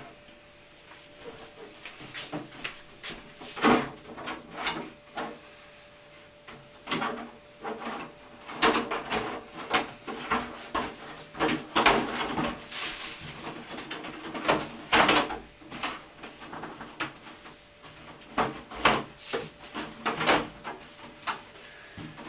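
Irregular clicks, knocks and light clatter of hard plastic parts being handled and moved about, as when a large-scale RC car is picked up and turned over.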